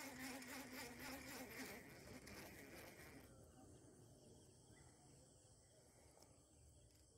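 Baitcasting reel cranked to wind in line, a buzzing whirr with a quick, even pulse that stops about three seconds in. Only a faint background remains after it.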